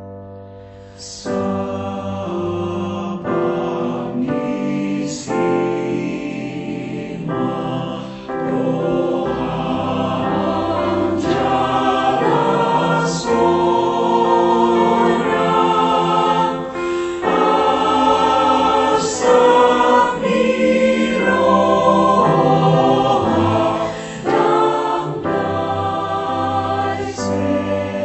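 Choir singing a hymn in several-part harmony, held chords changing every second or two.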